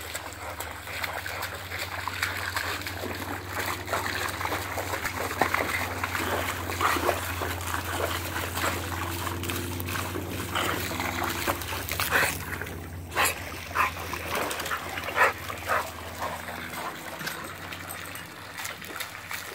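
American Bulldog splashing in a swimming pool and snapping at a stream of hose water, giving short barks and whines over the steady trickle and splatter of the water. The sharp, loudest sounds come in the second half.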